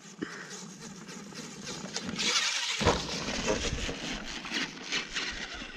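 Radio-controlled monster truck driving over a dirt track: its motor and tyres on loose dirt, getting louder about two seconds in, with a low rumble joining about a second later.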